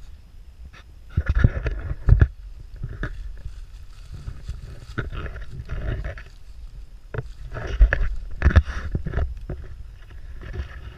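Footsteps and brush rustling as a hiker pushes through overgrown trail vegetation, in irregular crunching bursts over a low rumble of wind and handling noise on the microphone.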